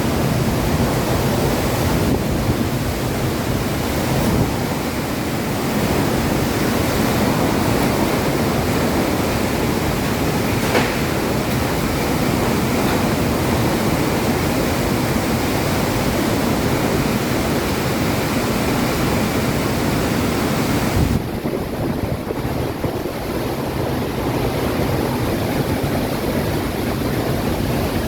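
Heavy rainstorm with strong wind: a loud, steady rushing of pouring rain and gusts. It turns duller about three-quarters of the way through.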